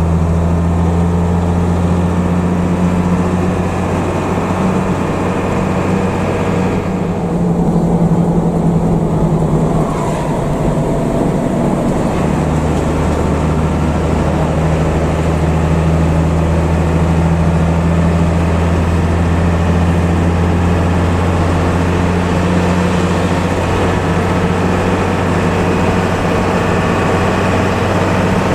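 Intercity bus engine running at cruising speed, a steady low snoring drone ("ngorok") heard from inside the bus. Its deepest note fades about seven seconds in and comes back around twelve seconds in.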